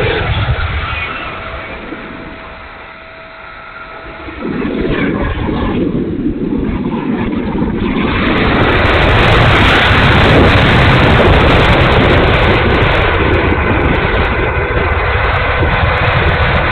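Twin 64mm electric ducted fans of an E-flite A-10 Thunderbolt II model jet running with a rough, noisy sound that the owner takes for a bad motor. The sound eases off over the first few seconds, then builds back about four seconds in and stays strong.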